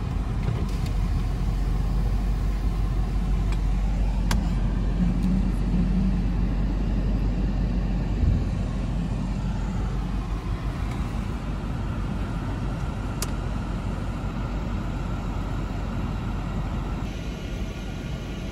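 Steady low rumble of engine and tyres inside a BMW car's cabin as it drives slowly, with a couple of faint sharp ticks.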